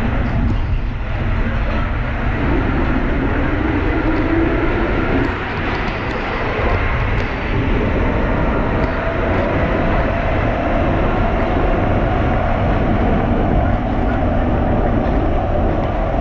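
Rubber-tyred Paris Metro MP73 train running with a steady rumble. A motor whine rises a few seconds in, and a higher steady whine holds through the second half.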